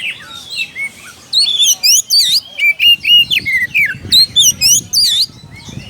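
Oriental magpie-robin singing a loud, fast run of varied whistled phrases that sweep up and down in pitch, starting about a second and a half in and breaking off near the end. It is the song with which the bird challenges a rival.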